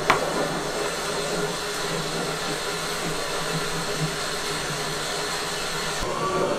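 A smartphone set down on a wooden table with a single sharp knock, followed by a steady rushing noise that changes character near the end.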